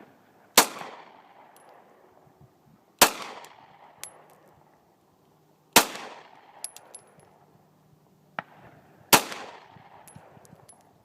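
Glock 19 9mm pistol fired four single shots a few seconds apart, each shot trailing off in an echo. Fainter clicks and light metallic pings sound between the shots.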